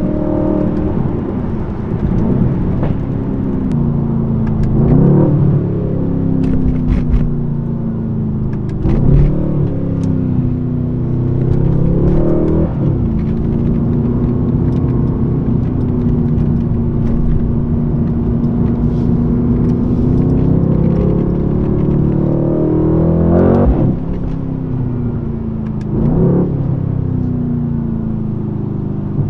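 Mercedes-AMG C63 S's 4.0-litre twin-turbo V8 being driven hard in manual mode: the revs climb and drop sharply at the gear changes several times, with a steadier stretch of even revs in the middle, heard from inside the cabin.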